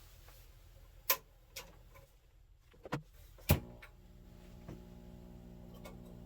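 A few sharp clicks, then, about three and a half seconds in, a steady buzzing hum with many overtones comes up from the Gemini PA-7000 preamp and grows slightly louder. It is the hum of a fault that appeared after the op-amp swap, which the owner puts down to his own work.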